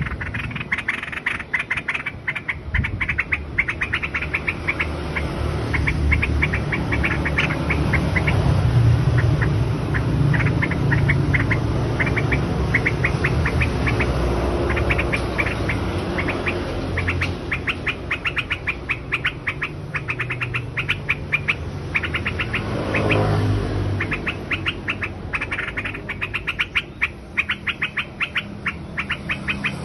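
A songbird calling in long, quick series of short chirps, several a second, with brief pauses between runs, over a low rumble.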